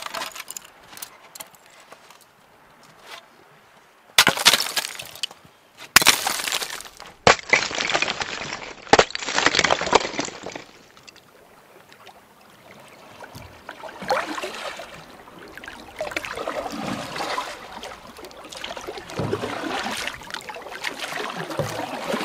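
Sharp crackling and clinking in several separate bursts, glassy and brittle, then a softer uneven rustle with a few low swishes.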